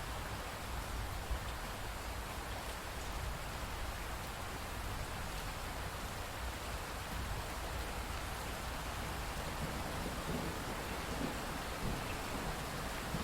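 Steady rainfall, an even hiss of drops, with a low rumble of thunder coming in near the end.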